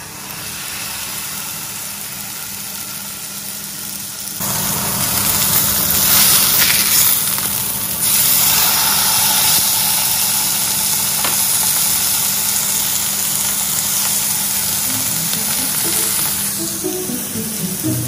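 Steak sizzling in a hot frying pan: a steady hiss that grows louder about four seconds in. Background music comes in near the end.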